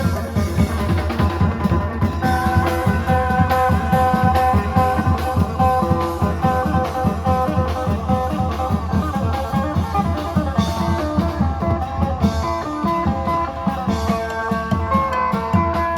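Isan phin, a Thai plucked lute, playing a melody over dense, steady klong yao long-drum rhythm and other percussion.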